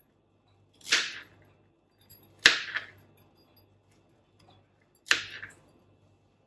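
Kitchen knife slicing through baby corn onto a cutting board: three separate cuts a second and a half to two and a half seconds apart, each starting sharply and fading within about half a second.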